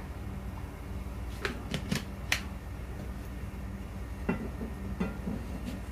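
A few sharp clicks and light knocks from handling a cooking-oil bottle and frying pan on a gas stove: a quick run of four about a second and a half in, then three more, spaced out, near the end. A steady low hum runs underneath.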